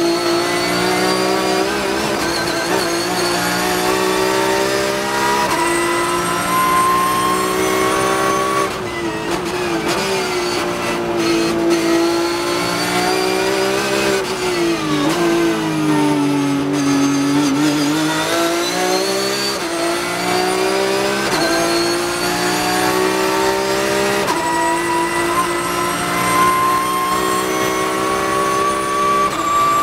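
Porsche 911 GT3 Cup race car's flat-six engine at high revs, heard from inside the cockpit, pulling hard and shifting up through the gears. Its note climbs steadily and drops sharply at a gear change about nine seconds in. Midway the revs sag and pick up again through a corner, and the note climbs once more near the end as the car accelerates in fifth.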